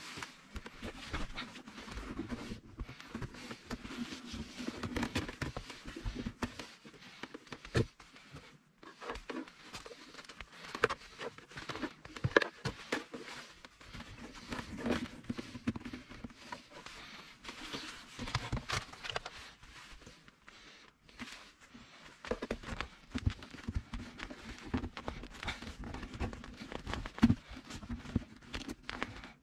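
Hands feeding thin wires through a car's opened centre console and handling its plastic trim: irregular rustling and crinkling with many small clicks and a few sharper knocks.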